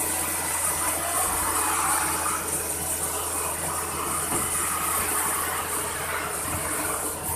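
CNC machine running: a steady high hiss over a low, even hum.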